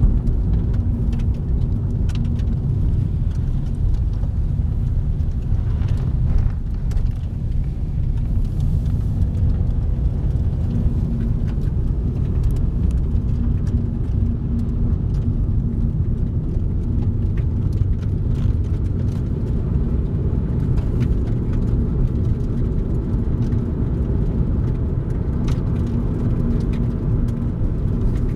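Car driving at a steady speed: a constant low rumble of engine and tyres on the road, with a faint steady hum.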